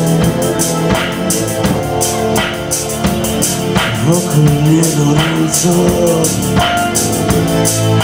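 A live band playing: acoustic guitar, bass guitar and a drum kit keep a steady beat with regular cymbal strokes. About halfway through, a male voice sings over it.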